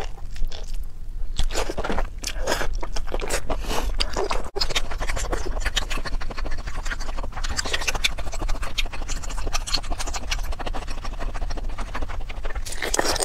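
Close-miked chewing and biting of a sauce-coated octopus tentacle: a dense, continuous run of wet, sticky mouth clicks and crackles, broken once about four and a half seconds in by a momentary drop-out.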